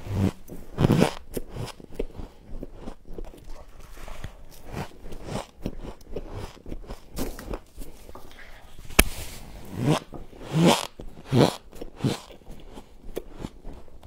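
Thick freezer frost being scraped and broken up with a plastic scraper: an irregular run of crunchy scrapes, with a sharp click about nine seconds in and a few louder crunches soon after.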